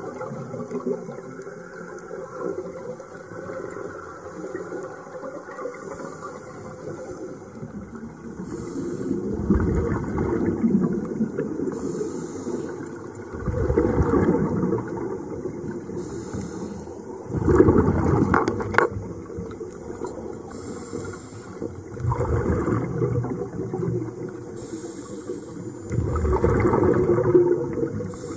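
Underwater recording of scuba divers breathing through their regulators: a steady low water noise, with a gush of exhaled bubbles about every four seconds, five in all.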